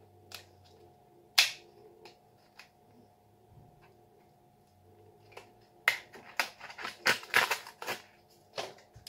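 A thin plastic-and-foil blister tray of candy eyes being handled and crinkled: a few sharp plastic clicks in the first two seconds, then a longer burst of crackling and crinkling about six seconds in.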